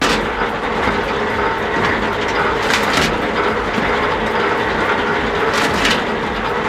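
Industrial wood-processing machine running, a dense mechanical clatter over a steady hum, with brief louder hits about three seconds in and again near six seconds.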